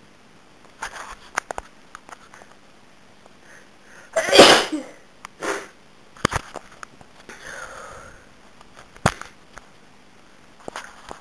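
A woman with a head cold sneezing: one loud sneeze about four seconds in, a smaller burst a second later, with sniffing and breathy sounds before and after and a few short sharp sounds later on.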